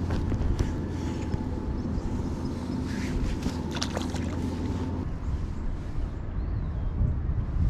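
Wind rumbling on the microphone, with a faint steady hum under it that stops about five seconds in and a few light clicks.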